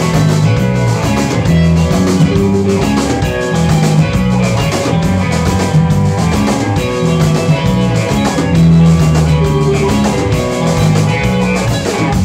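Rock band playing live: electric guitars over bass and a drum kit in an instrumental passage between sung lines.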